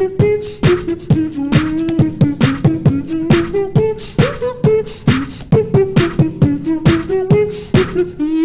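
Beatboxing: a fast, steady beat of mouth-made kicks, snares and hi-hats under a sung melody line of short stepped notes. Near the end the beat thins out under one held note.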